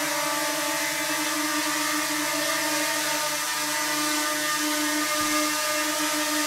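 DJI Mini 2 drone hovering, its propellers giving a steady whine with several overtones.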